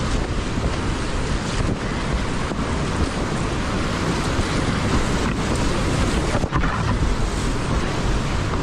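Class 5 whitewater rapids rushing loudly around a kayak, heard up close with water and air buffeting the microphone.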